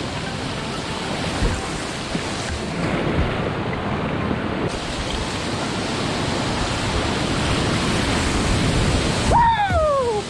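Steady rush of whitewater on a rain-swollen river, heard from a kayak running the rapids. About a second before the end, a pitched tone with overtones glides downward.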